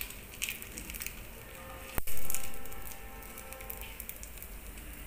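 Faint sizzling and crackling of oil in a frying pan. About two seconds in, a metal spoon clinks once against the cookware, and the ring dies away over a couple of seconds.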